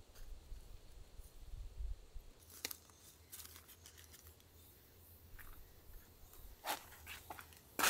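Quiet scraping and crackling of potting soil being worked with a small garden trowel and pressed in by hand around a potted plant. There are scattered small clicks, and two sharper ones near the end.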